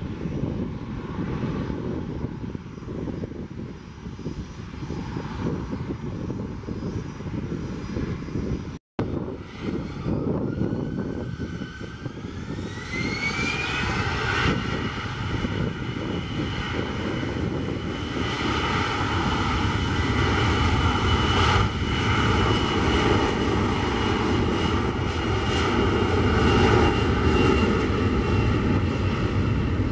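Airliner jet engines at an airport runway. First a steady distant jet rumble, then a cut to an Airbus A321 whose engines spool up to takeoff thrust for its takeoff roll. The rise is heard as a climbing whine that settles into a steady high whine over a deep rumble, growing louder toward the end.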